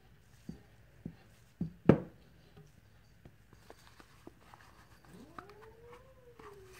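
A few sharp knocks and taps as a plastic jug and spatula are handled on the counter, the loudest about two seconds in. Near the end a cat meows once: one long call that rises, arches and sinks a little.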